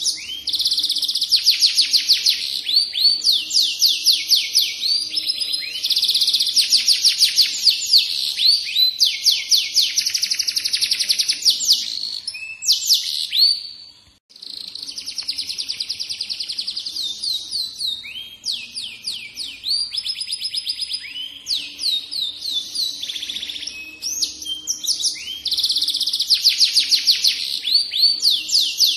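F1 domestic canary singing a long, continuous song of rapid trills and rolls, with one brief break about halfway through.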